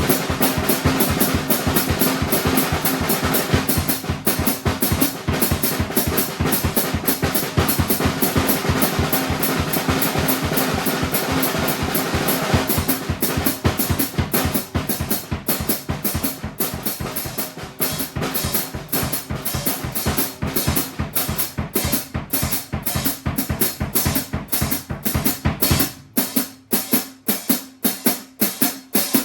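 Drum kit played in a free improvised groove, with bass drum and snare in rapid, dense strokes. The playing thins out to sparser hits after about twelve seconds, and the bass drum drops out near the end, leaving lighter, higher strokes.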